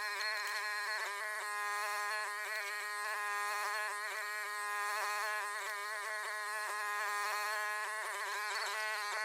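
Gasoline engine of a Chinese mini excavator running steadily with a buzzing whine, its pitch wavering now and then and most near the end.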